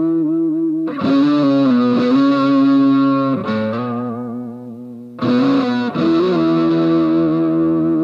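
Tokai SilverStar SS-36 electric guitar played through an amp: chords struck about a second in, again around three and a half seconds, and again just after five seconds, each left ringing with a wavering vibrato.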